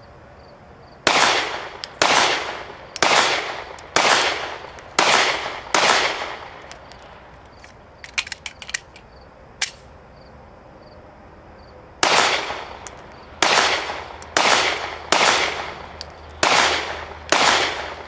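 Smith & Wesson M&P Shield 9mm pistol fired in quick pairs: six shots, a magazine reload with a few clicks about eight seconds in, then six more shots.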